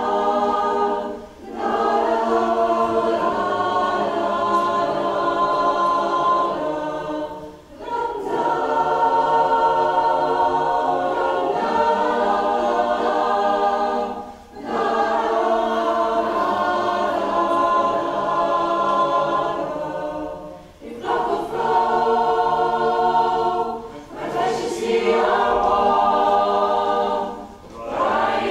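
Mixed choir singing full, sustained chords in phrases of a few seconds each, with short breaks between phrases.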